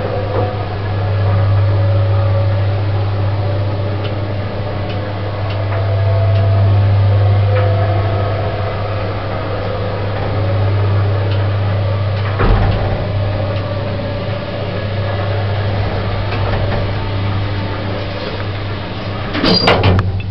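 An unmodernised 1970s single-speed Wadsworth lift is travelling, with a steady low motor hum. There is a single knock about twelve seconds in, and a burst of clatter near the end, just as the hum cuts off.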